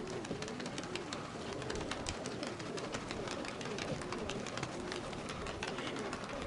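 Domestic pigeons, Sverdlovsk high-flyers, cooing: repeated rolling coos that overlap one another, with scattered sharp clicks throughout.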